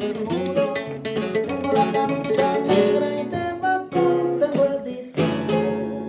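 Two Spanish guitars played together, quick plucked runs over strummed chords. About five seconds in, a final strummed chord rings out and fades.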